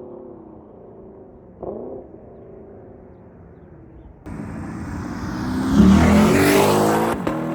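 Lexus LC 500's 5.0-litre V8 exhaust with an aftermarket Power Craft mid-pipe: idling with a short blip of the throttle about two seconds in. Then the sound jumps abruptly to a much louder engine note that swells for a couple of seconds and drops off near the end.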